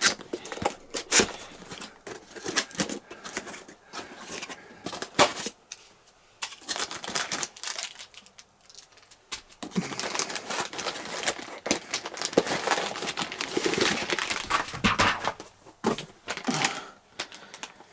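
Cardboard box and packaging being opened and handled by hand: irregular rustling and crinkling with scattered clicks and knocks, busiest in the second half.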